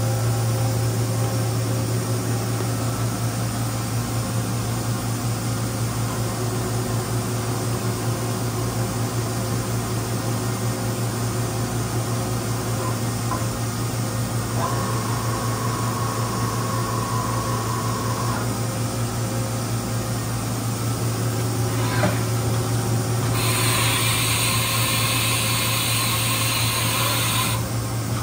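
Steady low machinery hum of a machine shop. A steady high tone comes in for about four seconds near the middle, a click follows, and then a loud hiss lasts about four seconds near the end.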